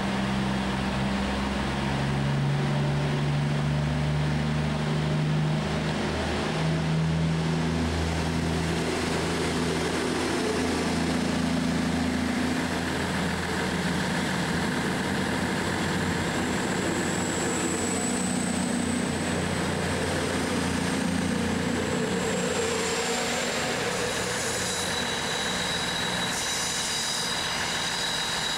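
Virgin Voyager diesel multiple unit's underfloor diesel engines running as the train pulls out and passes, the engine note shifting in steps in the first several seconds. A high whine comes in about halfway through, and high tones appear near the end as the train draws away.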